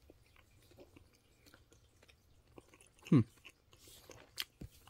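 Quiet mouth sounds of someone eating a spoonful of ice cream: faint smacking and small clicks, with a short falling "mm" about three seconds in.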